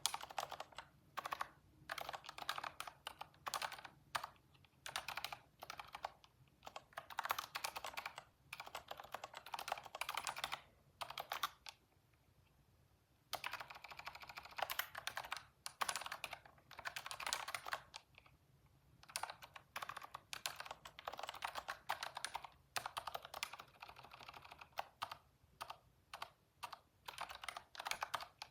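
Typing on a computer keyboard in quick runs of keystrokes, with short breaks between bursts and one longer pause about halfway through.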